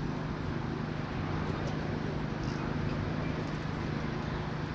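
Steady low hum of an idling engine over general street noise.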